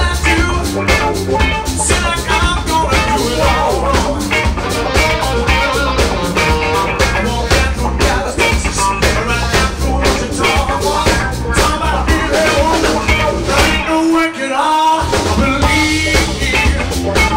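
Live blues-rock band playing loud: electric guitars, bass guitar and drum kit. About fourteen seconds in, the bass and drums drop out for about a second in a brief break before the full band comes back in.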